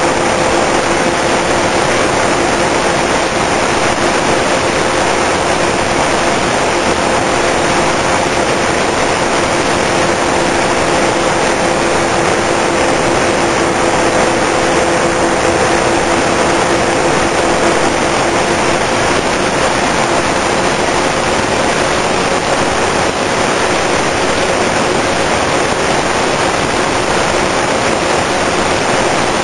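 Twin brushless electric motors and propellers of a Multiplex TwinStar II RC plane running steadily in flight, heard as two steady tones a little apart in pitch. Over them is a loud, even rush of wind and airflow on the onboard camera's microphone.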